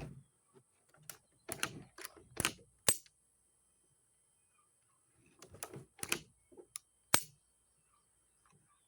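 Metal parts of a semi-automatic Thompson being handled and fitted back together during reassembly: two bursts of clicks and clunks, ending in a sharp click about seven seconds in.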